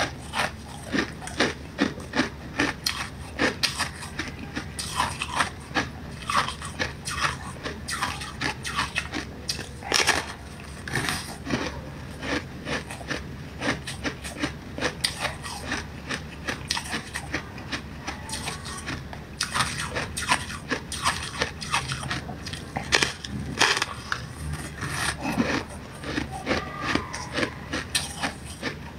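Close-miked crunching and chewing of a frozen ice slab: a dense run of sharp cracks and crackles as the ice is bitten and crushed between the teeth.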